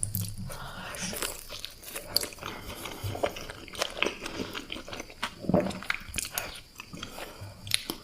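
A person biting and chewing pizza, with crunching bites and many irregular sharp clicks of chewing.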